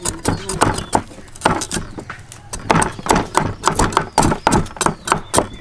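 Cleaver chopping ginger on a thick round wooden chopping block: quick, irregular knocks of the blade on the wood, several a second.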